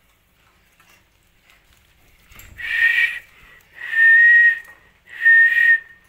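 Three short whistled notes, each held at one steady pitch for under a second, about a second apart.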